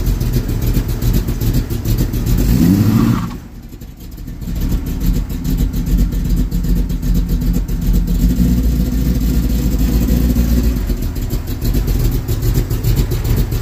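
Loud cammed 454 big-block Chevy V8 in a 1972 Chevy C10 running with a deep rumble. It revs up once about two and a half seconds in, the sound dips briefly just after, and then it settles back to a steady run.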